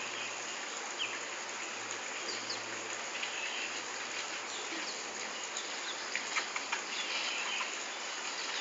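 Steady outdoor ambience: an even background hiss with short, faint high chirps scattered through it, typical of insects and small birds around a screened enclosure.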